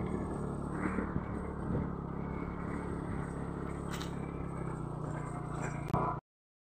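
Small motorcycle engine running steadily while riding, with wind noise on the microphone; the sound cuts off abruptly near the end.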